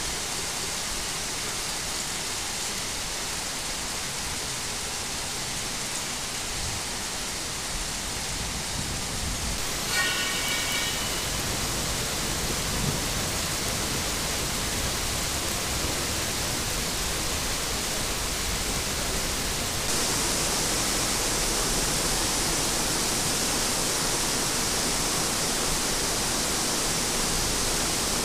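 Heavy rain pouring down steadily in a storm, a continuous hiss of rain on roofs and streets that grows louder and brighter about two-thirds of the way through. About ten seconds in, a brief high-pitched tone sounds over the rain.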